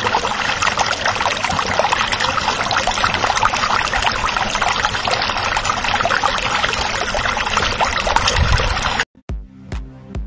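Steady rush of pouring, splashing water that cuts off suddenly about nine seconds in. Electronic music with a steady beat starts right after.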